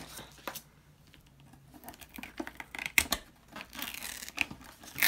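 Pink glitter heat transfer vinyl being peeled away from its clear plastic carrier sheet during weeding: scattered short crackles and clicks, the sharpest about three seconds in.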